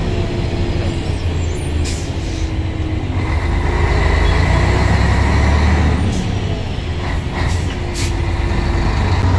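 Scania truck's diesel engine running in slow stop-and-go traffic, heard from inside the cab as a steady low rumble that grows louder for a couple of seconds in the middle. A few short high hisses cut in near the start and in the second half.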